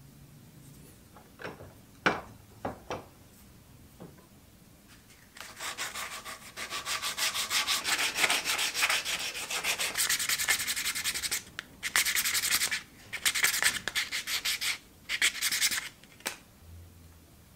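Sandpaper rubbed by hand over a small turned wooden knob clamped in a vise, in quick back-and-forth strokes that start about five seconds in, break off briefly about halfway through, then resume. A few light clicks and knocks come first, as the knob is handled.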